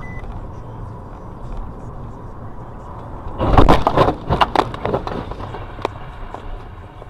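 Road and cabin noise of a car driving, heard from inside the car. About three and a half seconds in comes a burst of loud knocks and crunching lasting about a second and a half, as an orange Nissan GT-R cuts in right against the car's front corner: the sound of a side-swipe collision.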